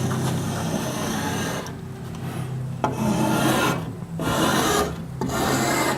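A hand-held edge tool shaving the wood of a paddle shaft in long rasping strokes, about four of them with brief pauses between.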